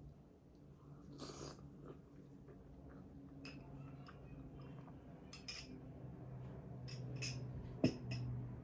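Quiet eating of sweets: scattered short mouth clicks and soft clinks, the sharpest near the end, over a steady low hum.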